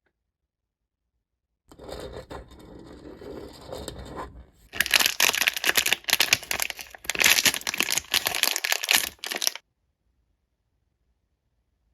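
Packaging being opened: a soft rustle, then from about five seconds in a louder run of dense crinkling and tearing that stops abruptly.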